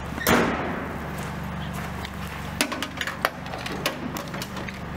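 An engine running with a steady low hum. A sudden loud clatter comes just after the start, then a run of sharp knocks and clicks in the middle as metal equipment is handled.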